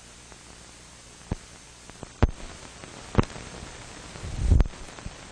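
Steady hiss of an old film soundtrack with no dialogue. Three sharp clicks come about a second apart, and a louder low thump comes a little after four seconds in.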